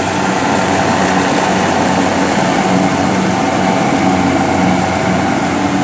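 Kubota DC70 rice combine harvester running steadily as it cuts rice: its diesel engine and harvesting machinery humming at a constant pitch.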